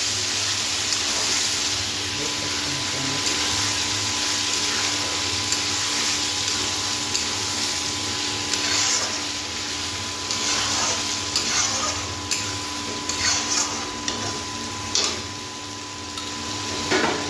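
Mutton sizzling in a steel kadhai while a flat spatula stirs it, with a steady hiss throughout. From about halfway in, the spatula scrapes and knocks against the pan in short sharp strokes.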